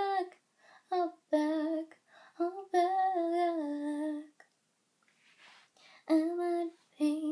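A girl's voice singing wordless notes unaccompanied, in short phrases with one long held note in the middle, a brief pause, then a few more notes near the end.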